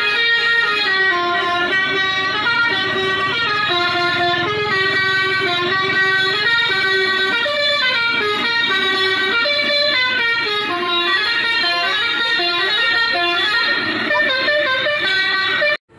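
Telolet Basuri multi-tone bus horn playing a stepped melody through a Bluetooth speaker, several notes sounding together. It cuts off suddenly near the end.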